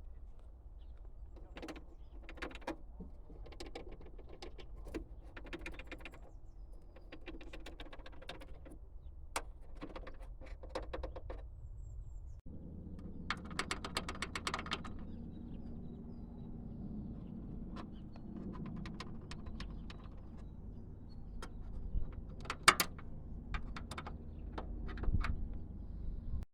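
Rattling and clicking from the back of a VW e-Up electric car, heard inside the cabin over a low steady rumble. It comes in short irregular clusters, with a few sharper knocks near the end.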